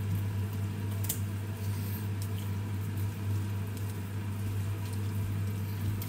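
Metal tongs tossing and mixing pancit noodles (rice vermicelli and canton egg noodles) in a wide non-stick pan: soft, wet squishing, with a sharp click about a second in and another near the end, over a steady low hum.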